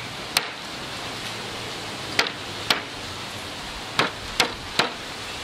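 A metal meat-tenderizer mallet knocking down onto garlic cloves on a wooden chopping board, crushing them: six sharp knocks at uneven intervals, three of them close together near the end.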